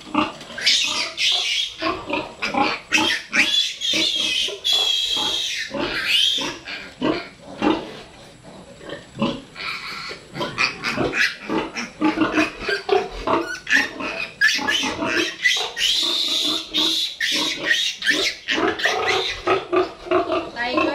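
Piglets squealing shrilly and over and over, high-pitched distress squeals as they are caught and held up by the hind legs for injections.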